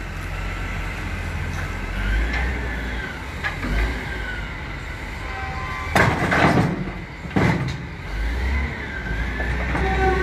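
Reach stacker's diesel engine running steadily with a faint hydraulic whine as it handles a steel shipping container over a rail flatcar. Two loud metallic clanks come about six and seven and a half seconds in, the container or spreader striking metal.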